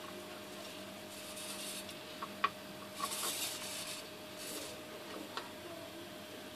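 Hobby servo motors of an Arduino-driven robot arm whirring in three short bursts as the arm moves, with a couple of sharp clicks and a faint steady hum underneath.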